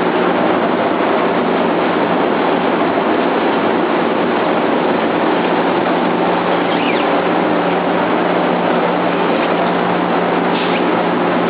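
Sunflower-seed microwave roasting machine running: a steady, even mechanical noise with a constant low hum.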